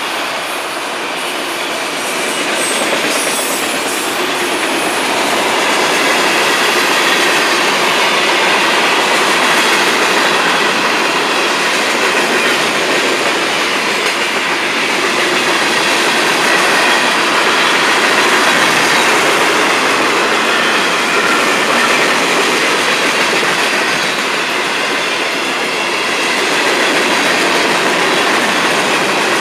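Freight cars of a long Florida East Coast Railway freight train rolling past at close range: a loud, steady noise of steel wheels running on the rails.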